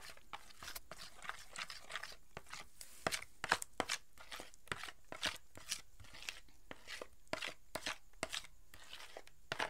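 A silicone spatula stirring and scooping thick cream in a bowl, making irregular wet, sticky clicks about two or three times a second.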